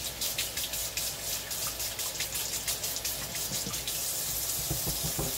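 Kitchen faucet running into a stainless steel sink while hands are rinsed under the stream, the water splashing and spattering unevenly off the hands. About four seconds in the flow settles into a steadier rush.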